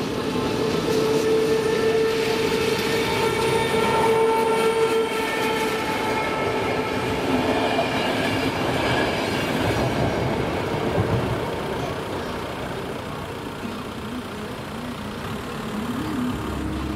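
A locomotive-hauled passenger train passes over a level crossing. It is loudest in the first ten seconds and dies down after about eleven seconds. For roughly the first five seconds a steady pitched tone with overtones sounds over the rolling noise.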